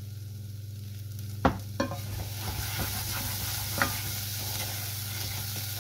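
Diced onion and garlic sizzling in a stainless steel saucepan while being stirred with a wooden spoon, with a couple of sharp knocks about a second and a half in. The sizzle grows louder from about two seconds in, over a steady low hum.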